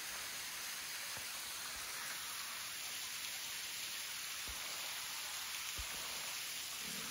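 Thin waterfall of Cattail Falls spattering down a rock face into a pool, a steady hiss of falling and splashing water. Two soft low bumps come around the middle.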